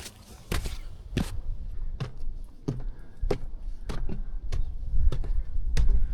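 A hiker's footsteps on a snowy mountain path, about one and a half steps a second, with a low wind rumble on the microphone that grows louder near the end.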